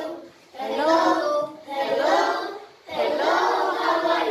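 A class of children singing together in unison, in three short phrases with brief breaks between them.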